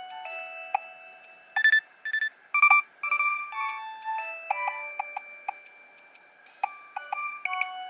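Nokia 3100 phone ringtone playing: a synthesized polyphonic tune of steady beeping notes, several sounding at once and changing quickly, with short clicking percussion hits.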